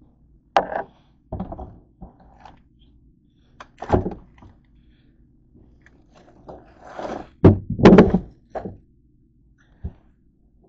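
Irregular thunks and knocks of things being handled around a white plastic tub, with the loudest cluster about seven to eight seconds in.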